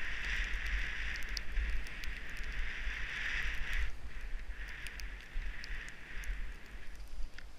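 Skis hissing through deep powder snow in two long stretches, the first breaking off about four seconds in, over a steady low rumble of wind on a helmet-mounted camera.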